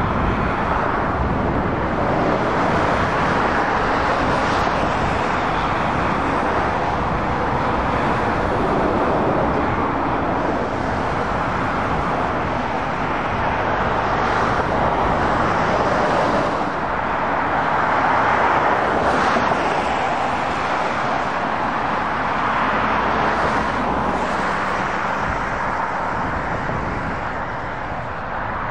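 Steady motorway traffic noise from lorries and cars driving past: tyre and engine noise that swells and eases every few seconds as vehicles go by.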